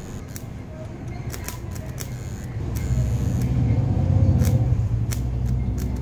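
Homemade arc welder made from a microwave oven transformer: the transformer buzzing with a deep mains hum as the electrode is struck against a metal piece, with sharp crackles from the arc. The buzz grows louder about halfway through and eases near the end.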